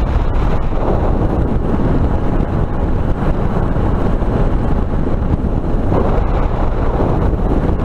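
Steady wind buffeting the helmet camera's built-in microphone at highway speed on a Suzuki DR650 single-cylinder motorcycle, with the bike's engine and road noise underneath.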